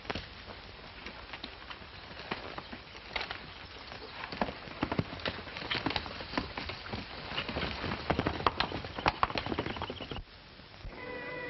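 Hoofbeats of horses, an irregular clatter that grows louder and denser, then cuts off suddenly about ten seconds in. Music begins near the end.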